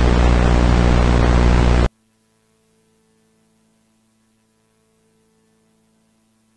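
Loud analog static hiss with a low electrical hum underneath, cutting off suddenly about two seconds in. Near silence follows, with only a faint hum left.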